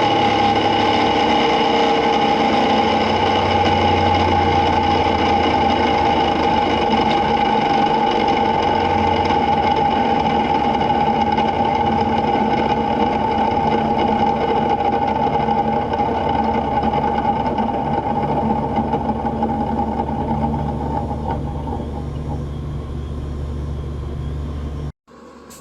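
High-speed gear test rig running: a 3D-printed polycarbonate (PC+) straight spur gear, greased with white lithium grease, spinning in mesh with a steady, loud whine of several tones. It weakens slightly over the last few seconds, then cuts off abruptly near the end.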